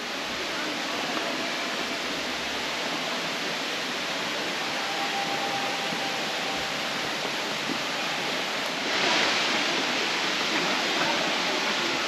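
Tiered waterfall rushing: a steady hiss of falling water that grows louder about nine seconds in.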